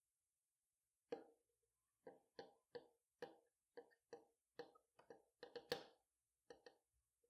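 Faint, uneven clicks and taps of hand-stitching: a needle and thread being worked through nylon webbing held in a metal binder clip. They start about a second in and come two or three a second, the loudest near the end.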